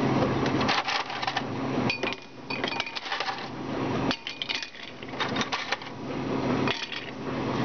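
Ice cubes clinking and rattling into a glass tumbler as they are taken from a freezer's ice bin: clusters of sharp clicks, with a low steady hum underneath at times.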